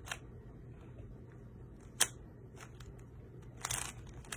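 Plastic Rubik's cube being turned fast during a solve: scattered sharp clicks and clacks of the layers snapping round, a loud one about two seconds in and a quick cluster near the end, over a faint steady hum.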